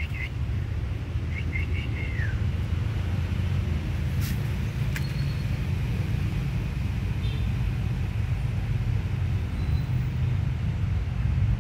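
A steady low rumble of outdoor background noise, with a quick run of small bird chirps about a second and a half in, the last note falling, and two sharp clicks around four and five seconds in.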